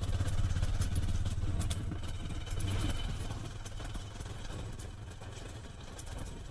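Motorcycle engine running at low road speed, with road and wind noise over it. It grows gradually quieter.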